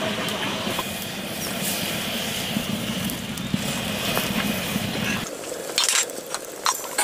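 A steady low rumble for about five seconds, which then drops away and gives way to sparse, sharp crackles as a lump of fat starts to sizzle in a hot aluminium pot.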